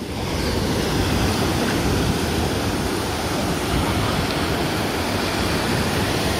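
Ocean surf washing in over the shallows: a steady rush of foaming water that swells in the first second and then holds.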